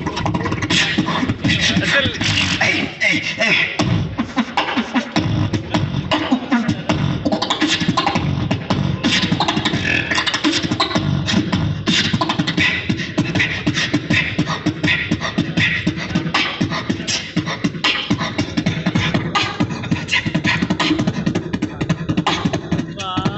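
Live beatboxing into a handheld microphone, played through stage speakers: a continuous, fast stream of vocal drum sounds with heavy bass underneath.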